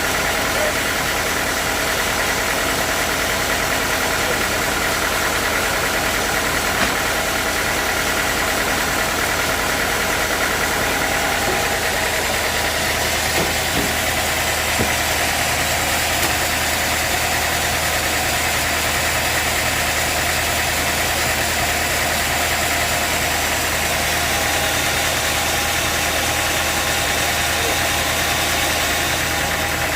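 Sawmill machinery running steadily, a constant engine-like drone with several held tones that do not change.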